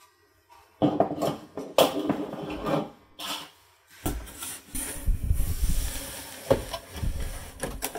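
Hands rummaging in a cardboard box of plastic model-railroad buildings: cardboard rubbing and scraping, with a few light knocks of plastic pieces, after a silent first second.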